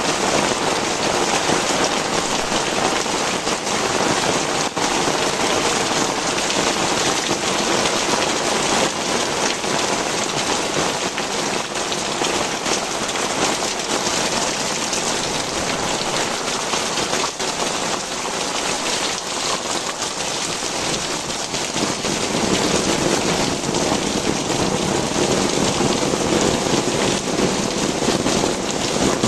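Heavy tropical rain pouring steadily, a dense hiss of drops striking the ground and nearby surfaces. About two-thirds of the way through the downpour grows a little louder and deeper.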